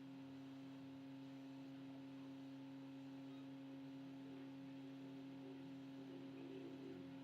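Faint, steady low hum with a few unchanging tones, like a bench tool's motor or electrical hum.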